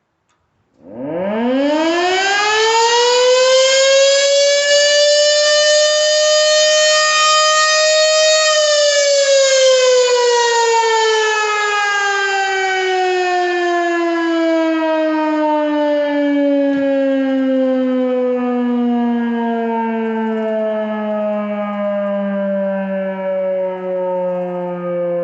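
Federal Model 3B electromechanical fire siren sounding a routine test: it starts about a second in and winds up quickly to a steady wail. After several seconds it winds down slowly, the pitch falling steadily, and it is still sounding at the end.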